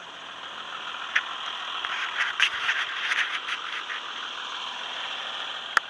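Tracks of a New Holland TM 130 tractor groomer rattling and clanking as it breaks trail through deep snow: a steady rattle with scattered sharp clicks, and one sharper click near the end.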